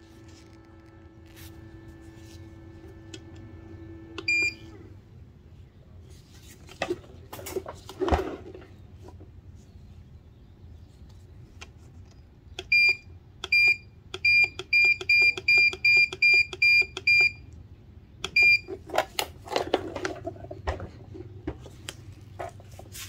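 Control-panel buttons of a West Marine portable power station beeping as they are pressed: a few single beeps, then a quick run of about nine beeps, roughly three a second, as the + button is tapped repeatedly. Handling knocks and rustle fall between the beeps, and a faint steady hum stops after the first beep.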